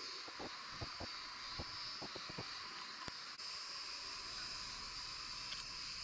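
Steady high-pitched insect chorus droning without a break, with a few faint short pops in the first couple of seconds.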